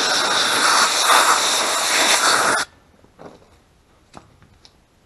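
Compressed air from an air-hose blow gun hissing loudly through a two-stroke quad's Mikuni carburetor to blow out its passages, cutting off abruptly about two and a half seconds in, then a few faint clicks of handling.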